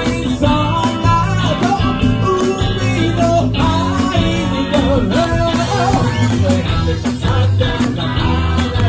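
Live band playing an upbeat pop-rock song: a male lead vocal over electric guitar and drums.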